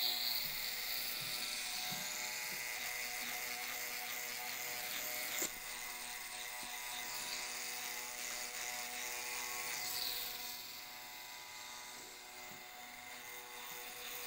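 Tattoo machine buzzing steadily as its needle lines the skin, with a short click about five seconds in.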